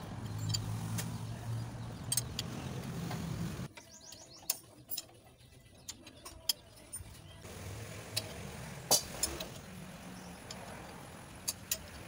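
Sharp metallic clicks and clinks from a wrench on the crankshaft pulley bolt of a Toyota 1GD/2GD diesel as the engine is turned over by hand with its new timing chain fitted, the loudest clink about nine seconds in. A steady low hum plays for the first three and a half seconds and cuts off suddenly.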